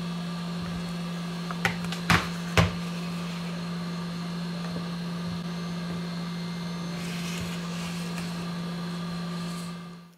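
A steady low mechanical hum, like a small motor or fan running, with a few sharp clicks about two seconds in; the hum fades out just before the end.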